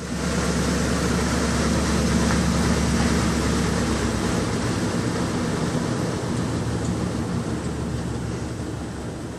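Electrolux LT15F top-loading washing machine running its intermediate spin: the motor comes on at the start with a low steady hum and spinning drum noise. It gradually gets quieter over the second half.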